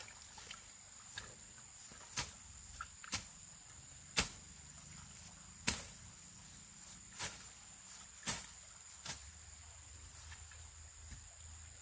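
A series of sharp knocks, about seven of them, irregularly spaced, over a steady high-pitched insect buzz.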